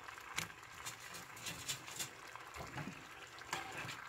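Thick, cornstarch-thickened sauce bubbling in a frying pan around chicken wings, with scattered small clicks and scrapes from a spatula as the wings are stirred through it.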